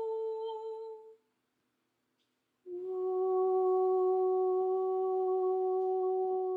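A person humming a long, steady held note that fades out about a second in; after a short silence a second, lower held note starts and is sustained.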